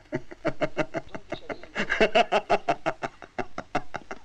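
A young man laughing hard, a long unbroken run of quick ha-ha pulses that peaks about two seconds in.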